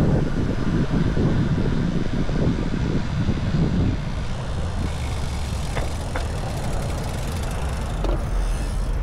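Wind buffeting the action camera's microphone on the move, easing about four seconds in to a steadier low rumble.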